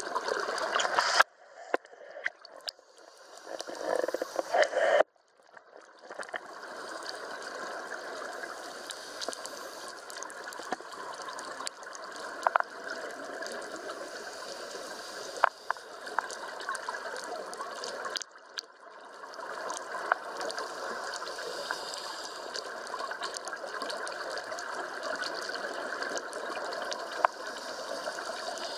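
Underwater ambience picked up by a submerged camera: a steady gurgling water noise with surges of scuba bubbles, scattered sharp clicks, and the sound dropping out briefly a few times.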